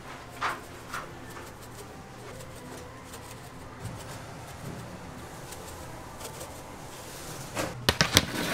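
Steady low kitchen hum with a few light knocks, then near the end a quick run of sharp metallic clinks and clatters as metal baking trays and breads are handled.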